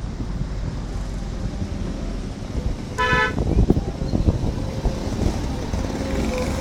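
A vehicle horn gives one short toot about three seconds in, over a steady low rumble.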